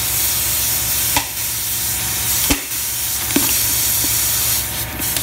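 Air hammer with a long chisel bit, running steadily as it splits an old Schedule 40 plastic pipe form set in a concrete floor. A few sharp cracks come as pieces of the pipe break.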